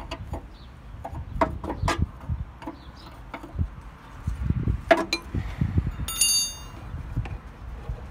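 Wind rumbling on the microphone, with scattered metal clicks and knocks from a wrench working the oil drain plug of a lawn mower engine, and a short high ringing tone a little after six seconds.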